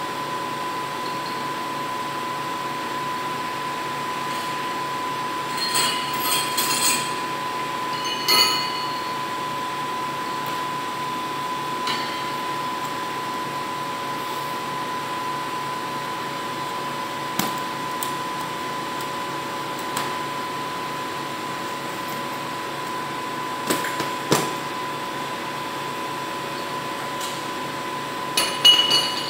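Scattered metallic clinks and knocks as a steel crane hook and shackle are handled against stacked steel test weights: a cluster a few seconds in, then single ones every few seconds. Under them runs a steady hum with a constant high tone.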